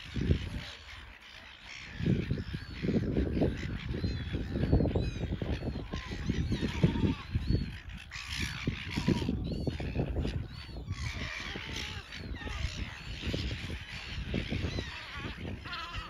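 A flock of gulls calling over one another in short, harsh squawks as they squabble over food, over a low, gusty rumble.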